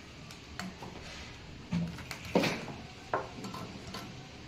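Plastic clicks and knocks from handling drip-irrigation microtubing and its small plastic fittings on a table: about five short sharp clicks, the loudest about two and a half seconds in.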